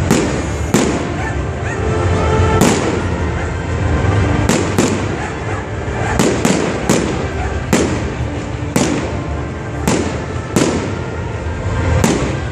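Fireworks display: aerial shells bursting one after another, about one bang a second, each with an echoing tail.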